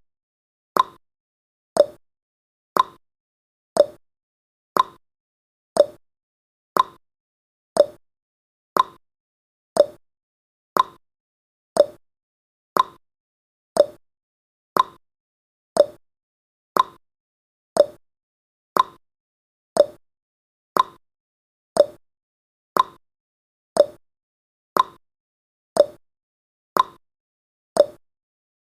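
Countdown timer's ticking sound effect: a short, sharp clock-like tick once a second, steady and even.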